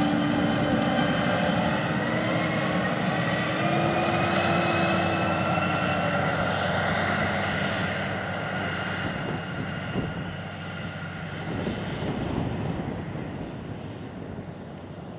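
Deutz-Fahr 9340 TTV tractor's 7.8-litre six-cylinder turbodiesel working under load as it pulls a high-speed disc through the soil. It is a steady engine sound with pitched tones that drift slowly up and down, and it fades as the tractor moves away.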